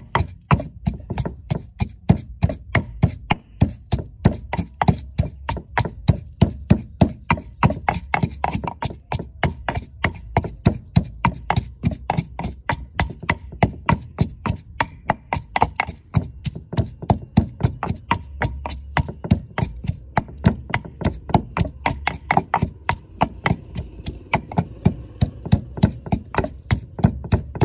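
Wooden pestle pounding chillies and garlic in a wooden mortar: a steady run of knocks, about three a second.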